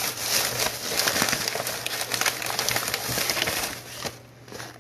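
Takeout food bag rustling and crinkling as a food box is pulled out of it, a dense run of crackles that dies down near the end.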